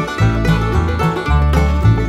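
Background music: an upbeat bluegrass-style tune with plucked banjo over a steady, regular bass line.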